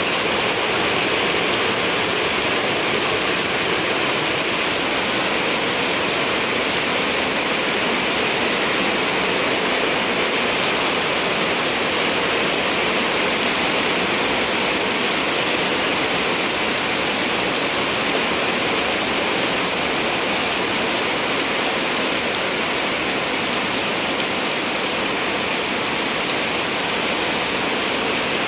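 Rain falling steadily on wet pavement and puddles, an even hiss with no breaks.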